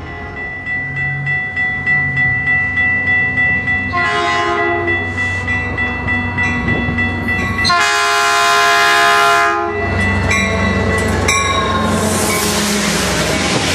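Diesel freight train approaching and passing, with a steady high squeal and a rhythmic clatter. The locomotive's multi-chime horn gives a short blast about four seconds in and a longer, louder blast about eight seconds in. Near the end the train passes close, with a rushing clatter of cars and squeals.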